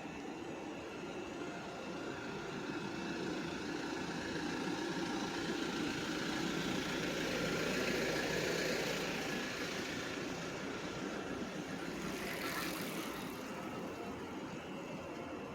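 A motor vehicle passing by on a city street: its engine and tyre noise build to a peak about halfway through, then fade, over steady street noise.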